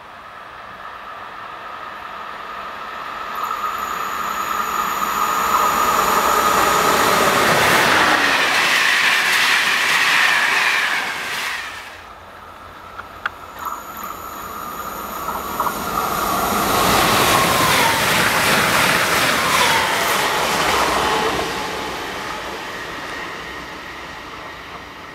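Trains running through a station on an electrified line, twice in a row. Each one builds up as it approaches, passes with loud rolling wheel-on-rail noise and a whine that drops in pitch, then fades away. The first pass cuts off abruptly about halfway through.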